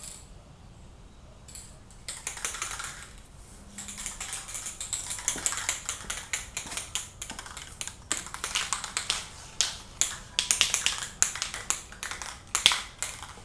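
Krylon camouflage spray paint can: a short hiss of spray about two seconds in, then a long run of quick rattling clicks, several a second, as the can is handled and shaken.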